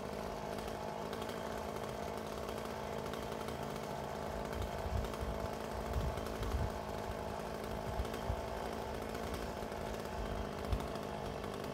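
Chainsaw running steadily up in the tree during topping, with several low thumps from about four seconds in, the sharpest near the end.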